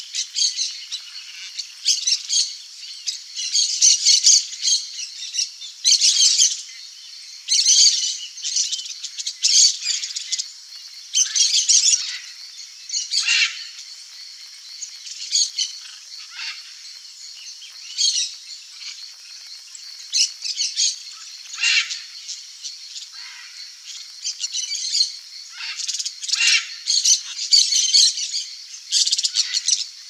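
Red-and-green macaws squawking: harsh, high calls repeated in short runs every second or two, with brief pauses between bouts.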